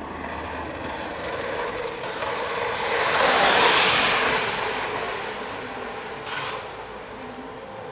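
BMX bike rolling fast on asphalt and passing close: tyre and air rush that swells to a peak about halfway through and then fades. A short clatter comes about six seconds in.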